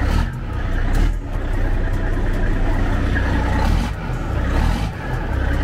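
Cat C15 diesel engine of a Peterbilt 389 idling steadily, warming up after three days of sitting.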